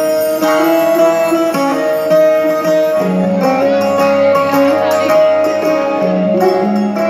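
Music playing for a dance routine: a melody of held notes that shift pitch every second or so, over lower sustained accompanying notes.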